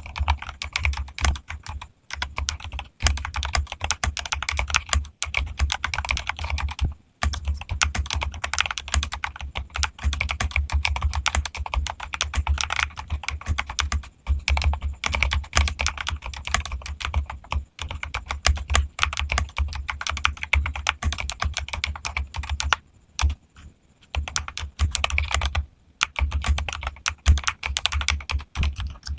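Mechanical keyboard being typed on quickly and continuously, each keystroke a sharp clack with a low thock underneath. The typing pauses briefly a few times, about seven seconds in, then around 23 and 26 seconds.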